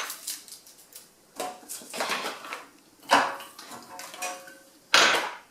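Glass spice jars and bottles clinking against each other and the wire basket as they are taken out by hand: a series of separate knocks with a short ring after each, the loudest about three seconds in and near the end.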